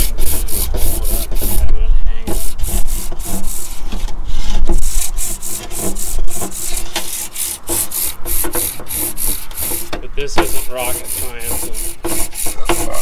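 Rapid, repeated back-and-forth rubbing or scraping strokes, about three a second, with a few brief pauses.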